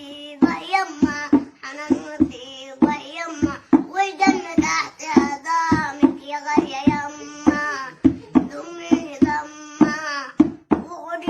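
A young boy singing in Egyptian Arabic in a high child's voice. A steady beat of sharp knocks or claps, about two a second, keeps time under the song.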